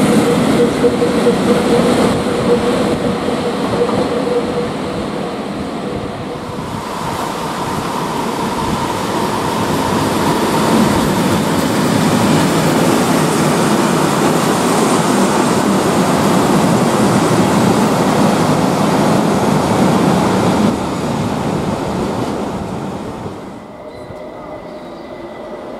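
Freight train passing behind PKP Cargo ET41 electric locomotives, with a steady hum and wagons rumbling on the rails. About six seconds in this gives way to a class 751 diesel locomotive hauling loaded log wagons past, its engine giving a steady tone over the rumble of wheels. Near the end the sound drops to much quieter station background.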